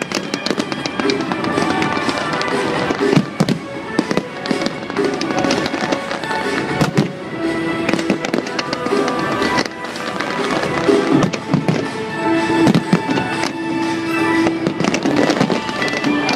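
A large aerial fireworks display: shells bursting and crackling in rapid, continuous succession, mixed with music with sustained tones.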